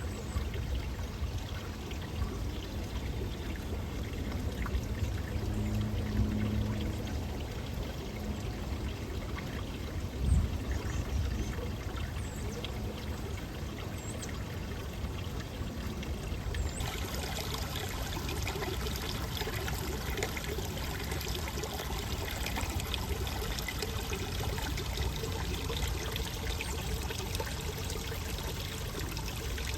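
Running water trickling and pouring steadily, like a small stream spilling over rocks; the rush turns brighter and fuller about seventeen seconds in. A brief low thump about ten seconds in.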